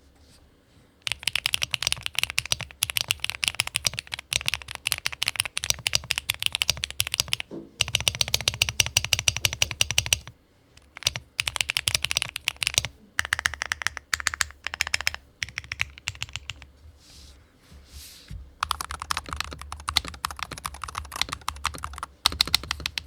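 Fast typing on a compact 60% keyboard: a dense run of clacking keystrokes. There is a short break about ten seconds in, a quieter spell later, and a change in the keystroke tone near the end.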